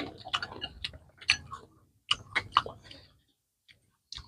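People chewing crunchy star gooseberry salad, with spoons and forks clicking against the bowl: a quick run of sharp clicks and crunches for about three seconds, then a pause and one more click near the end.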